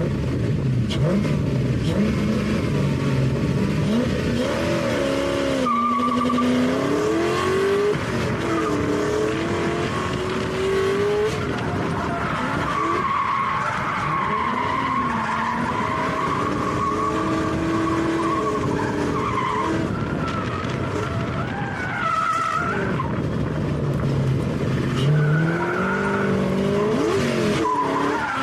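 Drift car engine revving up and down through a run, with tyres squealing and skidding as the car slides.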